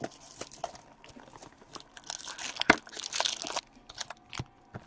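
Plastic shrink-wrap crinkling and tearing as a sealed hockey card box is unwrapped and opened, with a burst of crackling and a sharp snap about halfway through.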